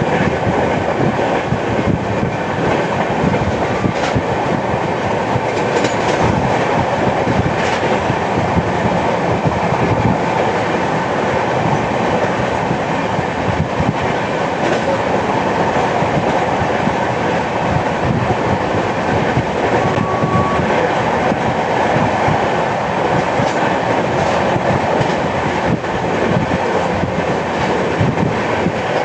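Express passenger train's coaches running at speed, a continuous rumble of wheels on rail with rapid clicks and knocks from joints throughout. The uploader calls this a flat-wheel track sound, the knock of a wheel worn flat on one spot.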